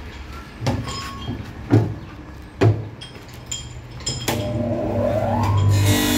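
Three knocks as the heavy rubber hydraulic hose is handled against the hose-cutting machine. About four seconds in, the cutter's electric motor starts, its whine rising in pitch and then holding steady.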